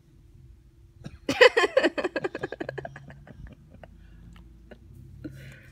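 Toddler's voice: a loud burst of rapid repeated sounds about a second in, fading away over about two seconds.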